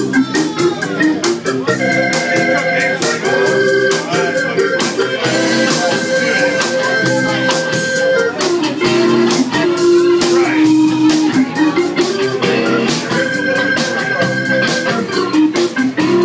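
Live funk band playing an instrumental passage: an electric organ holds long sustained chords over a steady drum-kit beat and bass.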